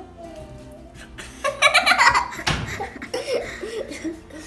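Young girls laughing: a loud burst of laughter about a second and a half in, carrying on in smaller fits of giggling.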